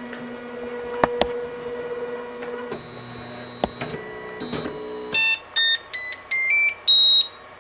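Flashforge Dreamer NX 3D printer at the end of a print: its steady machine hum runs with a few clicks, stops, and gives way to a brief lower hum. Then about six short electronic beeps at different pitches play as a little tune, the last held longest, signalling that the print has finished.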